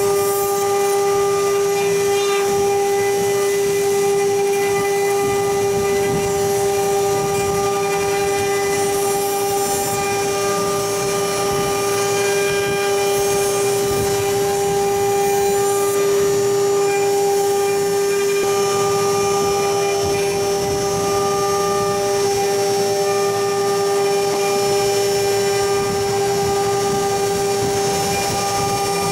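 Multi-spindle CNC router with rotary axes carving: the spindle motors run with a steady high-pitched whine, over a rough cutting noise as the bits mill the turning workpieces.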